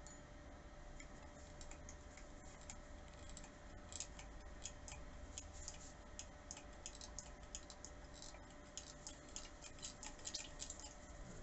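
Hand-pump oil can being worked, its thumb lever clicking in light ticks, several a second, from about four seconds in, as it forces oil through a tube down the bore of a rocker shaft.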